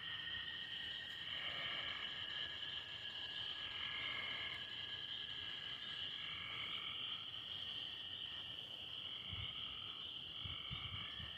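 Night chorus of insects and frogs: a steady high insect buzz with short calls repeating every second or two. A few low rumbles come near the end.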